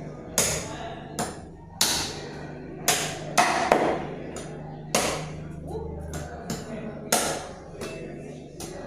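A blade chopping goat meat into chops on a chopping board: about ten heavy, irregularly spaced chops, roughly one a second.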